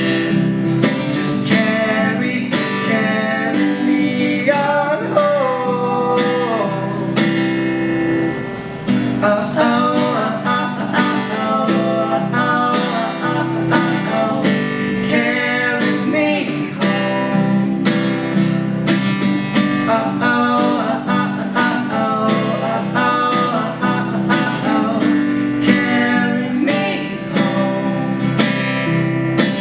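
Acoustic guitar strummed in a steady, even rhythm, with a voice singing over it in places.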